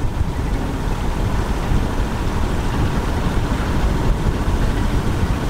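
A boat's engine running steadily under way, a rough low rumble with no change in speed.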